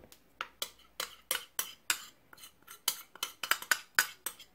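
A metal spoon clinking and scraping against a small bowl in a quick, irregular run of clicks as the activated yeast starter is scraped out into the dough bowl.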